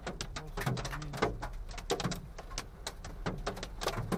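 Hail and heavy rain drumming on a car's roof and windscreen, heard from inside the cabin: a dense, irregular patter of sharp knocks, several a second, over the low hum of the moving car.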